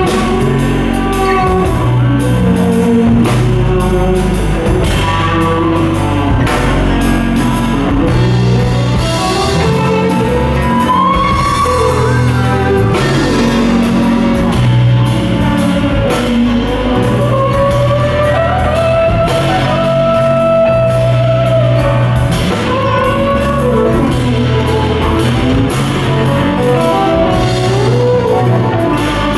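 Fretless electric guitar played through an amplifier: a slow melodic solo with notes that slide from one pitch to the next, over steady low accompanying notes.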